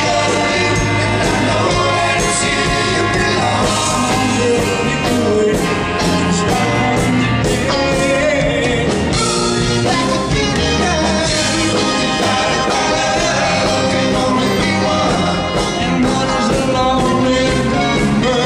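Live rock and roll band playing a song with singing, loud and steady.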